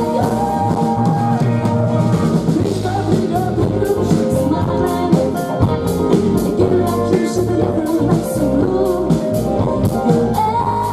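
Live band playing a pop-rock song: a woman's lead vocal over a Sonor drum kit, electric guitar and keyboard, amplified through the stage PA, with a steady drum beat.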